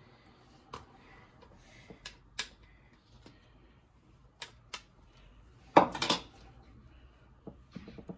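A metal spoon clinking and tapping against a bowl and plate while an egg and onion mixture is spooned onto a wrapper: a scattering of sharp clicks, with the loudest clatter about six seconds in.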